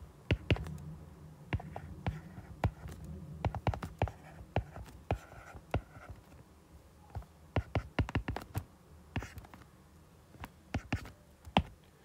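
Stylus tapping and scratching on a tablet's glass screen while writing out mathematics by hand: irregular sharp ticks, several a second, broken by short pauses.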